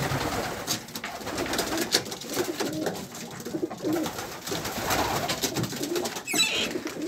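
Male racing pigeons cooing over one another in a small wooden loft, repeated low calls with scattered light clicks and knocks.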